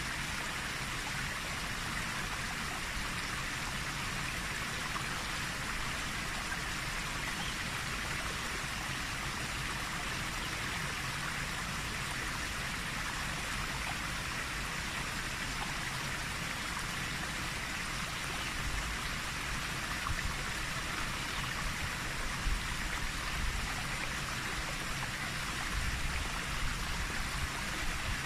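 Heavy torrent of white water rushing and churning down a rocky channel, a steady hiss-like rush. Wind gusts buffet the microphone in the last several seconds.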